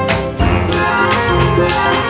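Film score with sustained instrumental notes over a steady percussive beat.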